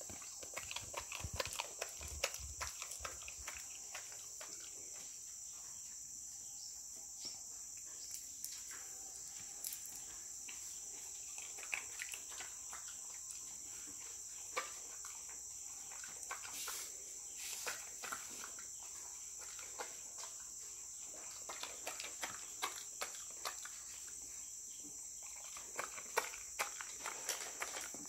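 A dog crunching crispy snack sticks in short clusters of sharp crunches, over a steady high-pitched chirring of insects.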